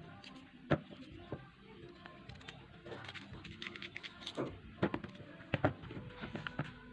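Scattered light knocks and taps of peeled cassava chunks being set down and handled in a plastic basin, several clustered near the middle.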